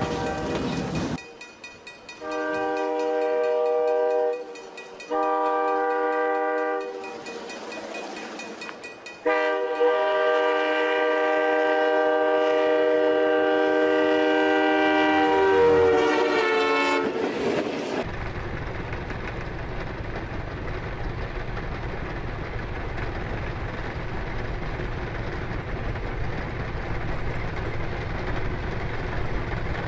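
Train horn sounding two short blasts and then one long blast whose pitch drops as it ends, followed by the steady rumble of the train running on the rails.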